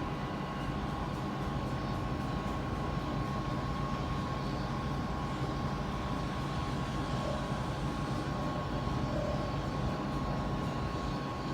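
Outdoor tornado warning siren sounding a steady, unbroken tone during its routine monthly test.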